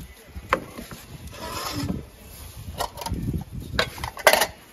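Hands working roti dough by hand and dipping into a bowl of flour: a few scattered sharp pats and knocks, the loudest near the end, over a low uneven rumble.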